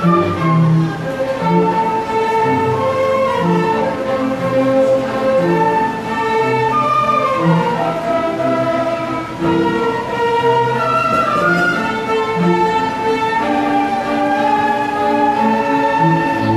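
A flute ensemble playing in several parts at once, with held melody notes above a lower moving line.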